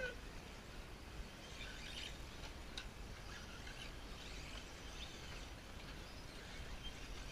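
Faint open-air background: a steady low rumble with scattered short chirps and clicks.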